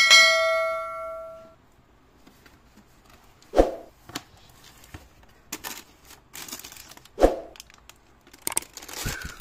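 A bell-like chime rings at the start and fades over about a second and a half. Then come two dull thumps about three and a half seconds apart, and paper packaging crinkling and tearing through the second half as the shoe box is unpacked.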